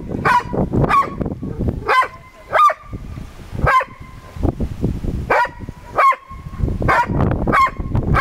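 Border Collie barking repeatedly at other dogs, sharp single barks about once a second with short irregular gaps.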